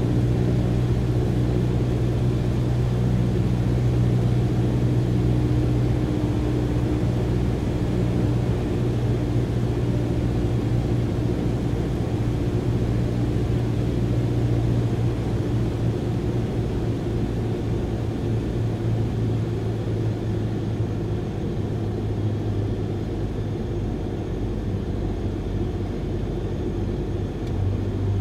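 Vehicle engine running at a constant steady drone, its pitch unchanging, with a slight easing in loudness over the second half.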